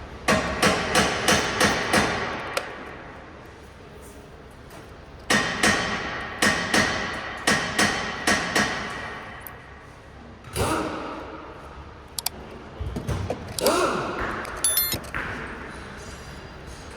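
Hammer strikes on metal in two quick runs of about seven blows each, roughly three a second, each with a short ring; scattered knocks and clatter of tools follow.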